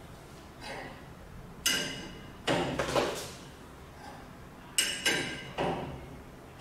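Steel spanner clinking against the big nut on a melt spinning machine's material barrel as the nut is tightened: two bursts of about three sharp, briefly ringing metal clinks, about three seconds apart.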